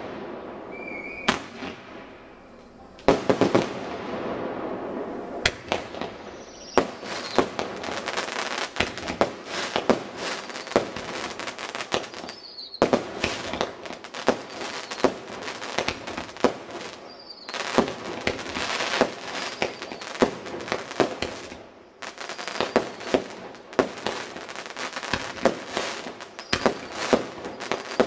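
Aerial fireworks launching and bursting: a few separate bangs at first, then from about seven seconds in a dense, rapid run of bangs and crackling, which drops off briefly about three-quarters of the way through before picking up again.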